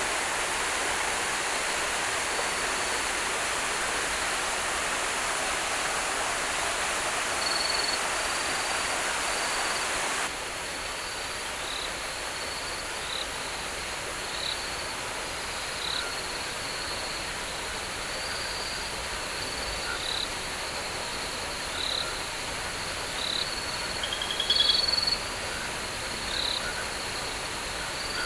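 Stream water rushing for about the first ten seconds, then an abrupt change to quieter rainforest ambience. In that ambience a steady high insect hum runs under short high chirps that repeat about every second and a half, with a brief louder trilled call near the end.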